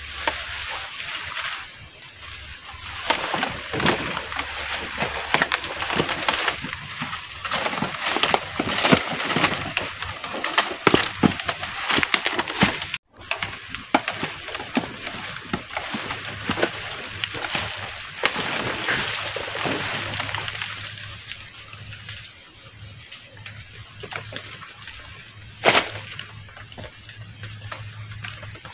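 Dense crinkling and rustling of a plastic fruit bag and banana leaves as a bagged banana bunch is handled. After a break, quieter rustling of leaves with one sharp knock near the end.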